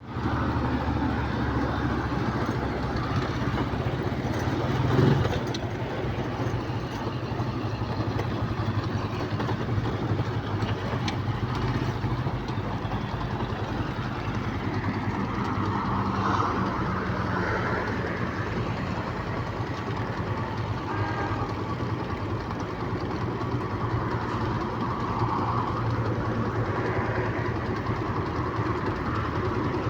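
An engine or motor running steadily with a low hum, briefly louder about five seconds in.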